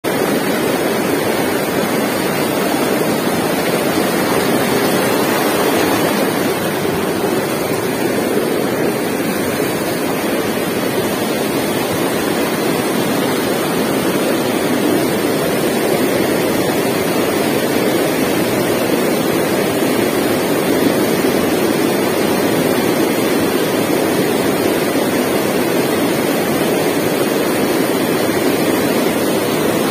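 River rapids rushing over and between boulders: a steady, loud rush of whitewater.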